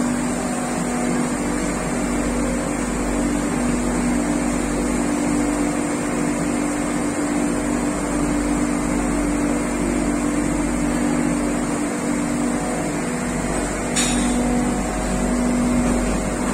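Steady hum of PCB processing machinery, a held low tone with a high hiss over it, and a short click about fourteen seconds in.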